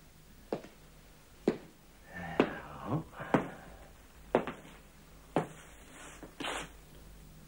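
Slow, evenly spaced footsteps of hard-soled shoes on a wooden floor, about one a second, ending near the end. A brief scraping rustle comes around the middle.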